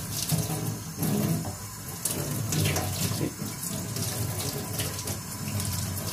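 Kitchen tap running into a stainless steel sink, the stream splashing unevenly over a sardine being rinsed and cleaned by hand.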